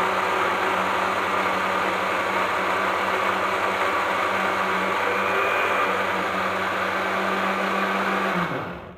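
Countertop blender motor running steadily as it purées tomatoes into a salsa dip, a constant whirr with a low hum. It is switched off near the end and winds down quickly.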